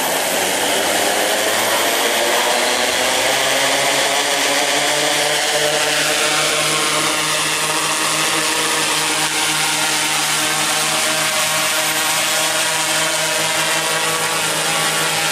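Quadcopter's four Tarot 4114 320kv brushless motors driving 16x5 carbon propellers. They spin up with the pitch rising over the first few seconds as the craft lifts off, then settle into a steady hovering drone of layered tones, carrying a 2 kg dummy payload.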